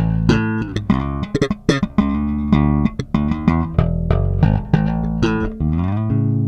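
Five-string electric bass with Nordstrand Big Singles single-coil pickups played solo: a quick run of plucked notes with slides, ending about six seconds in on a held note left to ring out.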